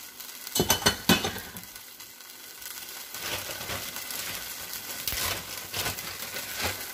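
Oil and beef pan juices sizzling in a stainless steel skillet, with small crackles and pops; the sizzle grows stronger from about three seconds in. A few sharp knocks come in the first second or so.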